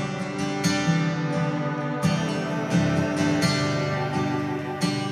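Background music: an acoustic guitar strumming sustained chords, with a new strum about every second and a half.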